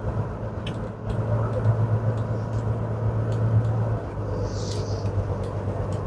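Inside a moving car: steady low hum of engine and tyre noise on the road, a little louder for a few seconds in the middle, with a brief high hiss near the end.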